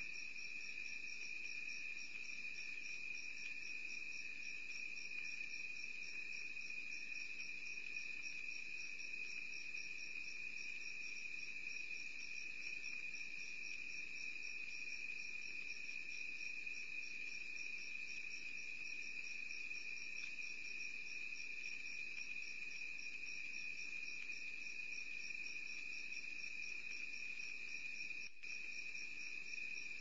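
Night insects chirping steadily: a continuous high trill with a rapid, regular pulsing chirp above it.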